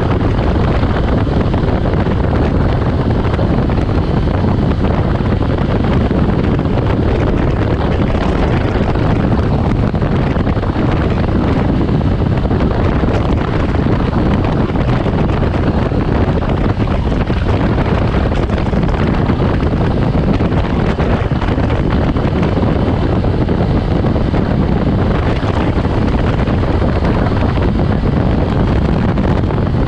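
Wind rushing over the microphone of a motorcycle riding at speed, a loud, steady roar with the bike's engine and road noise buried underneath, unbroken throughout.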